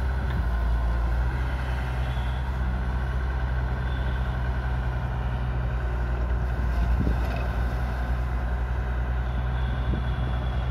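Heavy diesel machinery running steadily: a loaded ten-wheel dump truck's engine, with excavator engines working around it, giving a deep, even drone. A few faint knocks come about seven seconds in.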